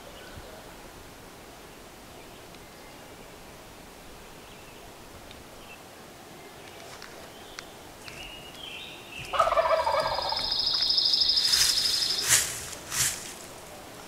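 Wild turkey gobbler gobbling once, loud and rattling, about nine seconds in after a quiet stretch. A high trill runs on for a couple of seconds after it, and a few short sharp sounds follow near the end.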